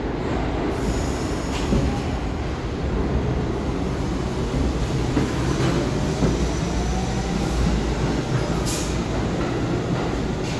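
New York City subway (1) train of R62A cars pulling out of the station and running off into the tunnel: a steady low rumble of steel wheels on the rails, with a few faint, brief wheel squeals.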